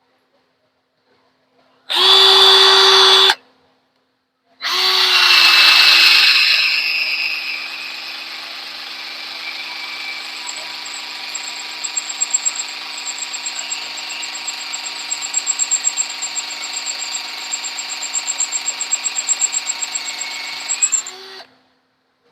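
Power drill boring into a metal rail: a short trigger burst, then after a pause a long steady run with a high whine and quick regular chatter, cutting off near the end. The bit is cutting poorly, a dull drill bit.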